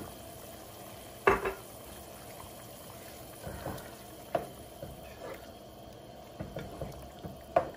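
Thick jarred tomato sauce emptied into a pot of beef and broth, with one sharp knock about a second in, then a wooden spoon stirring the sauce through, scraping and knocking lightly against the pot several times.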